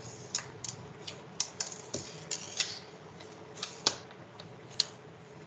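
Computer keyboard keys clicking at an irregular pace, about a dozen sharp clicks, over a faint steady hum.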